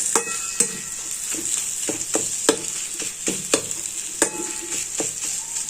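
Crushed ginger and spices frying in ghee in a kadhai, with a steady sizzle, while being stirred: the stirring spoon scrapes and taps against the pan about a dozen times at irregular intervals.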